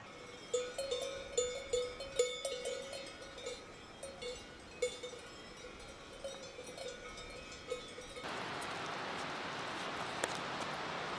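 Cowbells clanking irregularly, many uneven ringing strikes. About eight seconds in they give way abruptly to a steady rushing noise.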